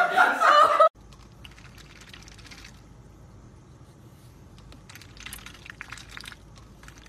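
A person laughing and talking, cut off abruptly about a second in. Then a white domestic duck dabbling its bill in a plastic cup of iced drink, in short bursts of quick crackly clicks over a low car-cabin hum.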